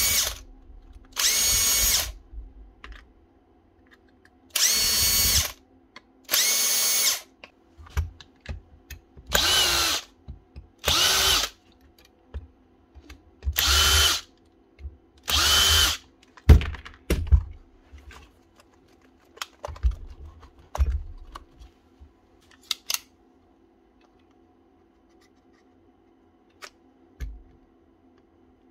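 DeWalt DCD996 cordless drill triggered in short bursts, about eight pulls of under a second each, mostly in pairs. Its motor is seized, and each pull is the controller trying to put current across it. Scattered clicks and knocks of the drill being handled follow.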